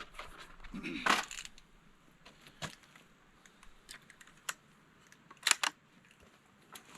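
17 HMR cartridges being pressed one at a time into the Savage 93R17's detachable magazine: a handful of sharp metallic clicks, a second or more apart, with a close pair near the end.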